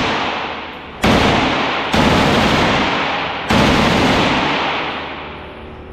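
Three gunshots fired indoors, about a second in, two seconds in and three and a half seconds in, each ringing out in a long echoing decay in the enclosed range.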